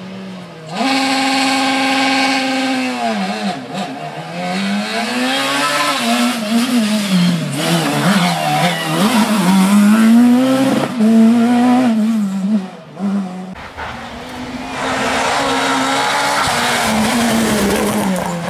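Rally car engines revving hard, their pitch climbing and dropping again and again as they accelerate and shift through the gears. About three-quarters of the way through, a lower, deeper engine sound takes over.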